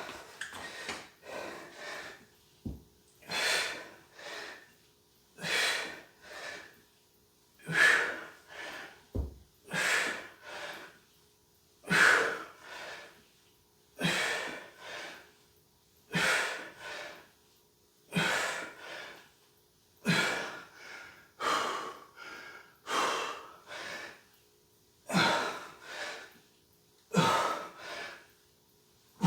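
A man breathing hard from exertion during a strength workout: a loud, forceful breath followed by a shorter one, repeating about every two seconds.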